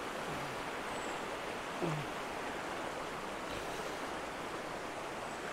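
A shallow river rushing and swirling around the bare feet and shins of a person wading across it, a steady, even rush of water.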